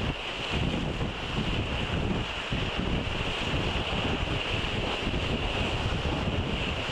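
Wind buffeting the microphone over a steady rush of water and spray along the hull of an IMOCA 60 racing yacht under sail.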